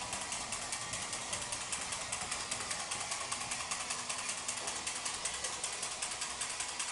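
Battery-powered Echo toys train running along its track: the electric motor and gear train whirring, with a rapid, even clatter.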